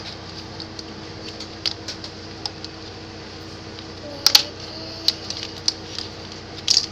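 Plastic construction-toy pieces clicking and clattering as they are handled and fitted together: a scatter of light clicks, with a sharper clack about four seconds in and another near the end, over a steady faint hum.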